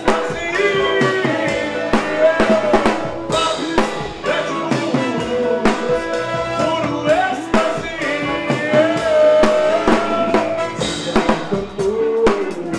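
Live rock band playing: a singer over a steady drum-kit beat with bass drum and rimshots.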